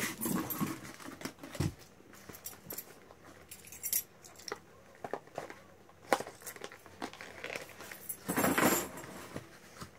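Keys jangling on a keyring as one key is used to slit the seal on a small cardboard card box, with scattered small clicks and scrapes. About eight seconds in there is a louder rustling scrape as the cardboard box is slid open.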